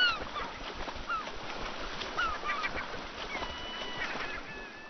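Gulls calling again and again, short cries that slide downward in pitch, over the splashing and rushing of shallow river water as bears run through it.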